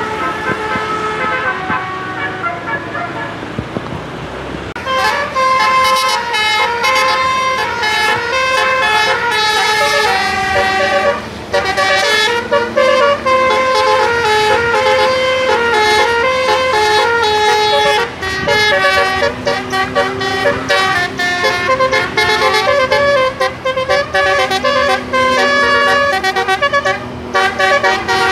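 Indonesian bus 'telolet' horn, a set of electrically switched air horns, playing a fast tune of many stepping notes that starts about five seconds in and goes on without a break. Before it, a fading horn chord and road noise.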